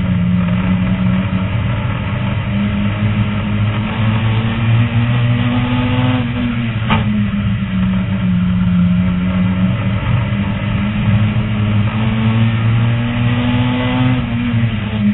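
Race car engine heard from inside the cockpit under hard racing, its note climbing steadily, then dropping sharply about seven seconds in with a single sharp click, and climbing again before a second drop near the end.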